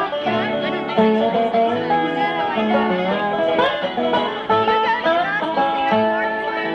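Bluegrass band playing an instrumental break between verses: banjo and guitar picking over bass, with sliding, held melody notes from a fiddle.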